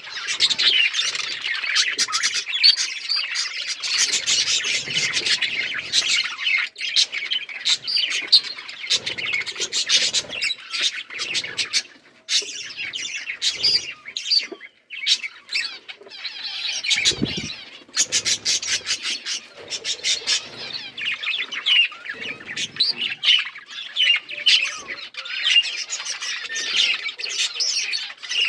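Several budgerigars chirping and chattering continuously in a busy overlapping warble, with brief lulls about twelve and fifteen seconds in.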